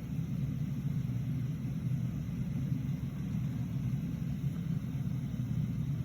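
Steady low rumble of a car running, with no separate clicks standing out.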